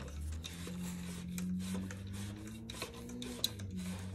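Metal sleeve of a soil injector being twisted on its threads against the plastic tank, giving faint rubbing and small clicks, over a low steady hum.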